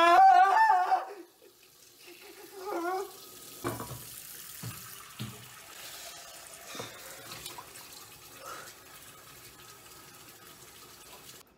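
A man's loud, drawn-out scream of disgust in the first second and a shorter wail about three seconds in, then a kitchen faucet running into the sink with a few dull thumps.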